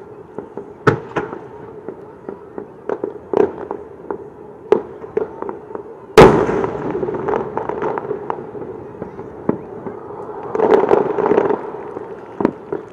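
Aerial firework shells bursting, a string of sharp booms at uneven intervals, the loudest about six seconds in and followed by a long echo.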